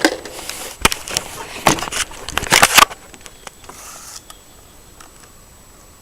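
Handling noises: a sharp click about a second in, then a stretch of clicking and scraping rattles, then only a low, steady background for the last three seconds.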